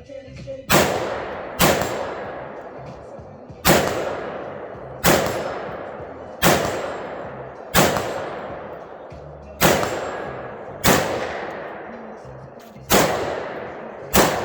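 Ten single gunshots fired at a slow, uneven pace about one to two seconds apart, each crack followed by a long fading echo.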